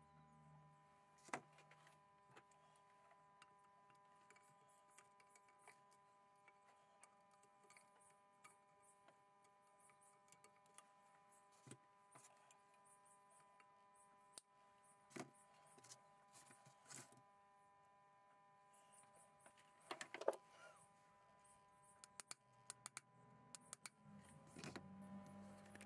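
Near silence broken by sparse small metallic clicks and taps of pliers and locking wire being handled on an aluminium engine crankcase, with a sharper click about a second in, a cluster around twenty seconds and a run of small ticks near the end.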